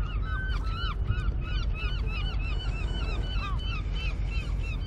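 A flock of gulls calling: many short, overlapping, rising-and-falling cries that continue throughout, over a steady low rumble.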